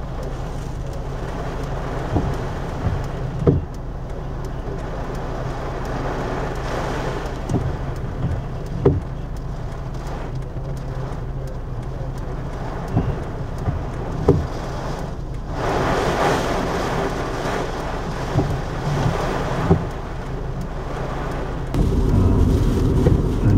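Steady engine and road noise inside a car driving in rain, with rain hiss on the car and scattered sharp taps. A louder low rumble comes in near the end.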